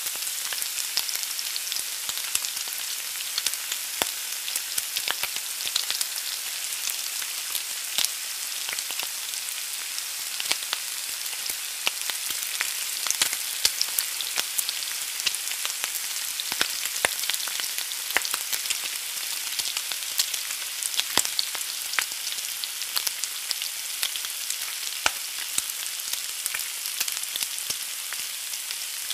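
An egg frying in a pan: a steady sizzle with frequent sharp crackles and pops.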